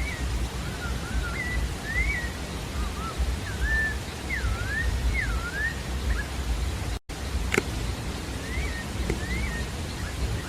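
Sabiá-da-várzea singing: a run of varied clear whistled notes, each sliding up or down, over a steady low background rumble. The audio cuts out for an instant about seven seconds in and is followed by a click.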